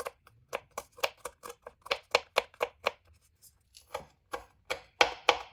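Knife chopping a garlic clove into small pieces: quick sharp strokes, roughly five a second, with a short pause about three seconds in before the chopping goes on.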